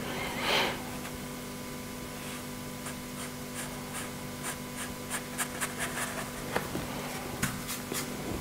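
Watercolour brush working: a brief louder swish about half a second in, then a run of short, light scratchy strokes of the brush bristles on paper and in the paint palette, more frequent in the second half. A steady low hum runs underneath.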